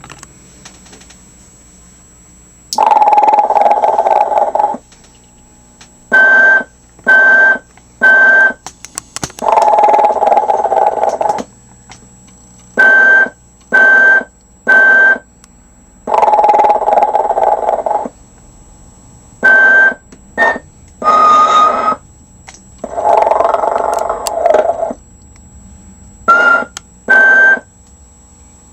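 Telco animated Santa figure playing its recorded snoring sound through its small speaker. A long noisy snore of about two seconds is followed by two or three short whistling puffs, and the cycle repeats four times. A faint steady hum fills the gaps.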